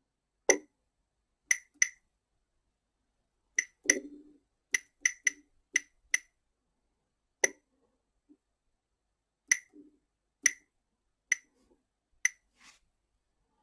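Short, high key-press beeps from the buttons of a Careium pager notifier, about fifteen single presses at an uneven pace, as text is keyed in on the device.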